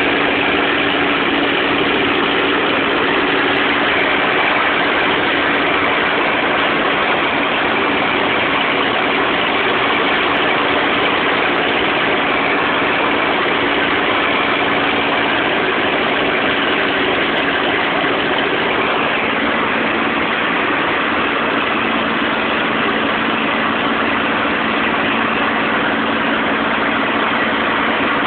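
Cockpit noise of a P-51D Mustang in flight, recorded on a phone: its Packard Merlin V-12 engine runs steadily as one loud, unchanging drone with a low hum.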